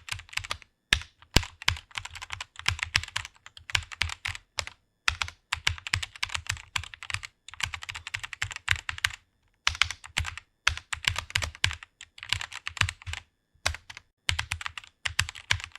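Typing on a computer keyboard: fast runs of keystrokes broken by a few short pauses.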